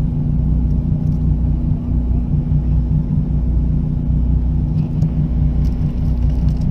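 A fishing boat's engine idling: a steady low drone with a constant hum.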